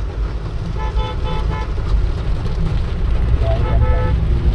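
Car horn sounding in short toots, one cluster about a second in and another near the end, over the steady low rumble of a car driving, heard from inside the cabin.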